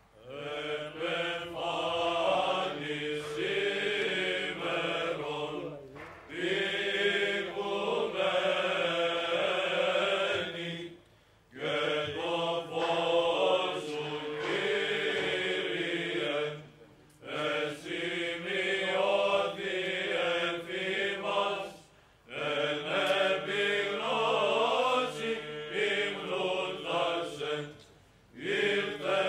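Greek Orthodox Byzantine chant: voices singing a melody over a steady held drone (ison), in phrases of about five seconds with short breaks between them.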